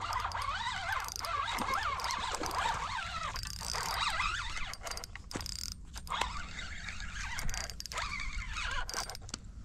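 Handling noise while a fish is reeled in on a spinning rod: a jacket sleeve rubbing over the camera microphone and the reel being worked, with irregular clicks and rustles. Faint high wavering squeaks come through in the first few seconds.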